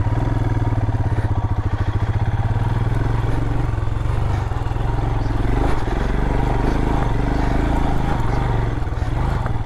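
Adventure motorcycle's engine running steadily under throttle as it is ridden through a rutted, soft-sand trail section.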